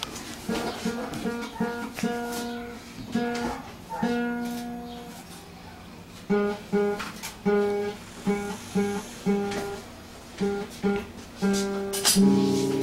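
Acoustic guitar being played: notes and chords ringing out in the first half, then short choppy strums about twice a second, loudest near the end.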